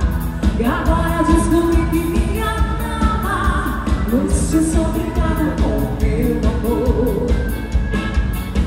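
Live band playing a dance song: a woman singing lead over electric guitar and drums, with a steady beat.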